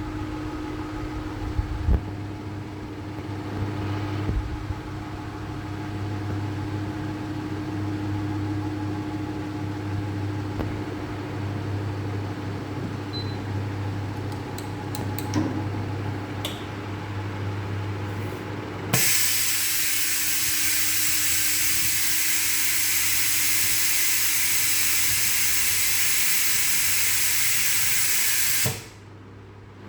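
Steady electrical hum of shop machinery with a few light clicks. About two-thirds of the way in, a loud, even hiss of air starts suddenly, holds for about ten seconds, then cuts off abruptly.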